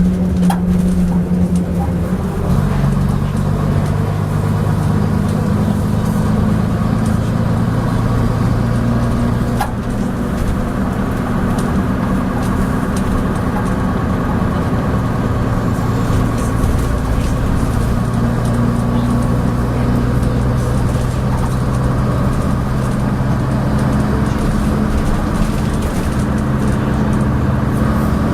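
Leyland Atlantean double-decker bus engine running steadily under way. Its note changes about two and a half seconds in, and there are a few faint knocks.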